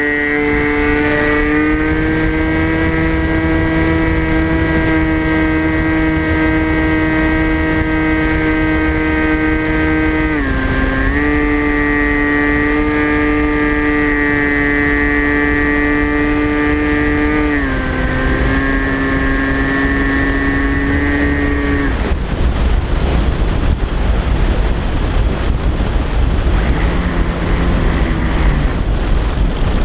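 Brushless electric motor and propeller of a TBS Caipirinha FPV flying wing, heard from its onboard camera: a steady high whine that dips in pitch twice, then cuts out about 22 seconds in, leaving wind rushing over the microphone as the plane glides.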